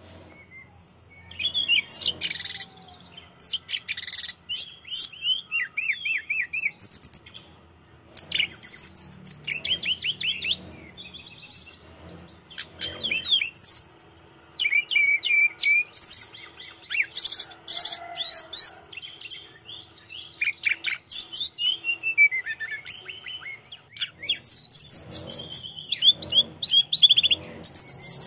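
Caged hill blue flycatcher (tledekan gunung) singing vigorously: a long run of loud, varied phrases of fast, high trills and clear whistles, broken by short pauses of about a second.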